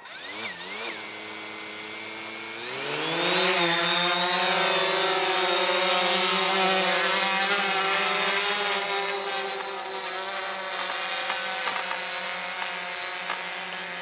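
DJI Phantom 4 quadcopter's four electric motors and propellers spinning up on the ground with a wavering pitch, then rising in pitch and getting louder about three seconds in as it lifts off. After that it holds a steady multi-pitched whine as it climbs.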